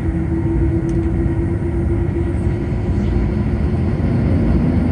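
Boeing 787-9 cabin noise from a window seat: the engines run under a steady low rumble as the airliner rolls on the runway. A steady hum fades about halfway through, and a slightly rising tone comes in near the end.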